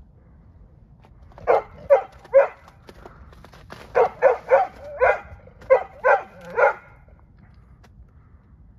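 A dog barking in short, sharp barks: three in quick succession, a pause, then seven more.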